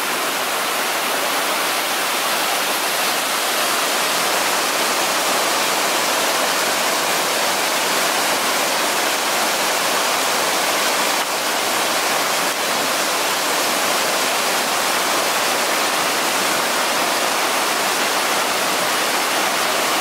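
Mae Klang Waterfall, a multi-tiered cascade, pouring over rock ledges: a steady, even rush of falling water that does not change.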